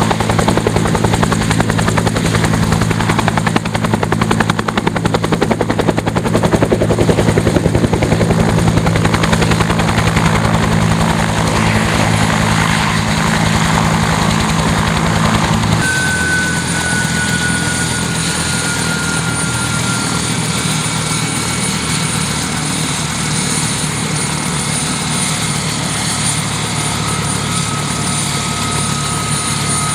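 Bell UH-1 'Huey' helicopter: the fast beat of its rotor blades over the steady drone of the turbine. About halfway through the sound changes abruptly, and a high turbine whine slowly falls in pitch.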